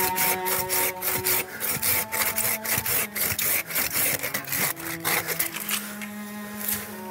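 Hand saw cutting through a pine branch in quick back-and-forth strokes, which thin out and stop about six seconds in.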